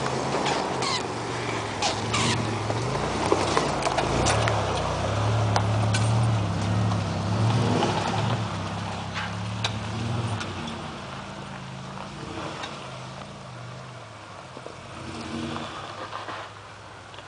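Off-road 4x4 engines revving hard under load, the pitch rising and falling, while spinning tires throw mud. The engine note drops away after about ten seconds as the vehicles move off, with scattered sharp clicks and knocks over it.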